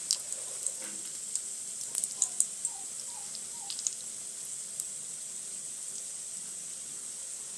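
Egg-dipped bread slices frying in a little oil in a pan: a steady sizzling hiss with scattered crackles and pops, which thin out in the second half.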